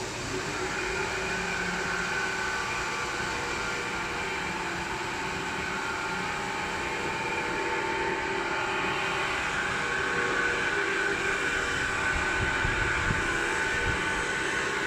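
Christ Varius rollover car wash machine running, a steady mechanical whine with several held tones over a low rumble.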